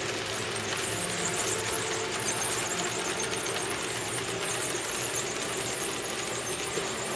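HO-gauge model freight train running steadily along the track: a continuous rolling noise of metal wheels on the rails over the whir of the locomotive's electric motor.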